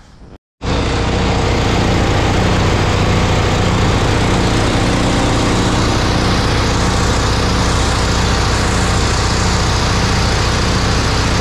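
Gas-engine-driven Ingersoll Rand air compressor running steadily. It comes in abruptly about half a second in and holds an even, loud, pulsing small-engine note.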